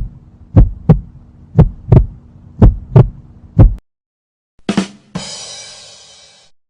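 Heartbeat sound effect: low thumps in double beats about once a second over a steady low hum, stopping after about four seconds. Near the end there is a short hit, then a bright crash that rings and fades away.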